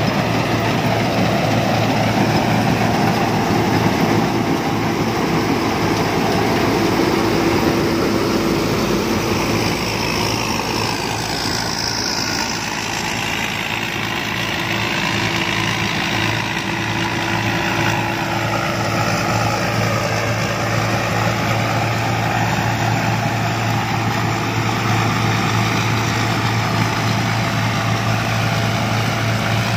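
Rice combine harvester running steadily, its engine humming under a broad mechanical noise. It dips slightly in loudness around the middle.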